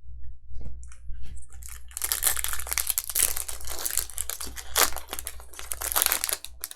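Plastic wrapper of a baseball card pack being torn open and crinkled: a few light clicks, then dense crackling from about two seconds in that lasts some four seconds.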